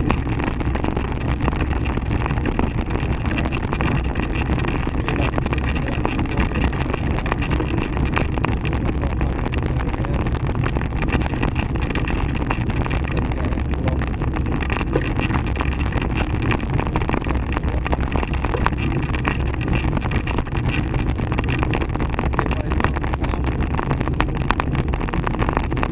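Steady rumble of a handcycle rolling along an asphalt road, with wind buffeting the microphone and constant small rattles and clicks from the moving frame.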